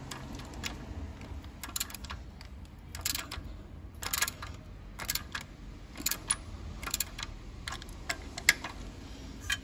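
A steel socket on an extension, turned by hand, clicking and rattling as it threads a new stud bolt into the steering knuckle arm of a Toyota Land Cruiser Prado 78. The short metallic clicks come irregularly, about one cluster a second.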